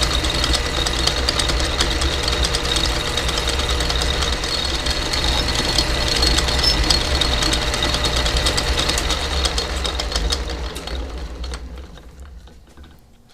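A power tool's motor running steadily with a fast, dense rattle, then switched off and winding down over about two seconds near the end.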